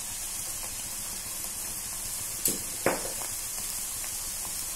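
Onion-tomato masala with freshly added spice powders sizzling steadily in oil in a pan, with two sharp taps about half a second apart midway.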